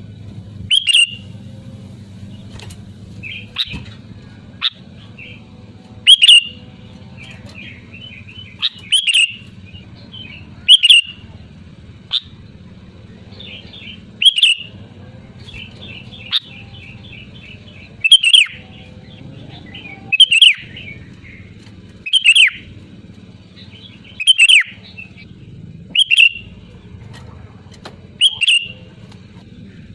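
Sooty-headed bulbul (kutilang) calling loudly and repeatedly: a sharp, falling call about every two seconds, with softer chattering notes in between.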